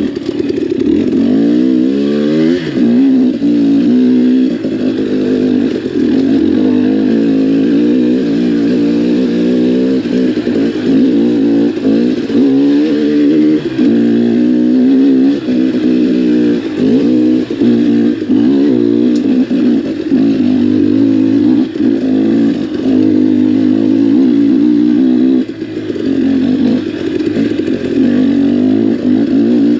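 KTM XC-W enduro dirt bike engine running under load, its revs rising and falling over and over as the throttle is worked on a rocky trail, easing off briefly near the end.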